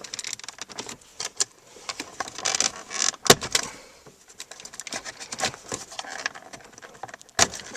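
Plastic centre console trim being pried up by hand: scraping and small clicks, with two sharp snaps, about three seconds in and near the end, as it pulls free of its clips.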